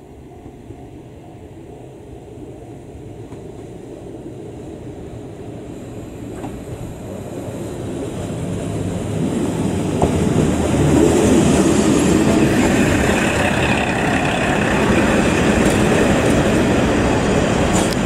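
Two-car KiHa 40 diesel railcar train approaching and running in alongside the platform. Its diesel engine and wheels on the rails grow steadily louder for about ten seconds, then stay loud as the cars come past.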